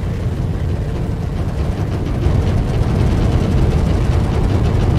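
Fire burning through a submarine's torpedo room in film sound design: a loud, dense rumble of flames with crackling over it, growing louder about two seconds in.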